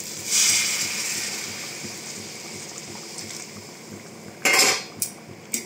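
Hot water poured into a hot kadai of fried chicken and potato masala, hissing and sizzling loudly as it hits the pan and dying down over a couple of seconds. About four and a half seconds in, a short loud metal clatter of a spoon against the pan.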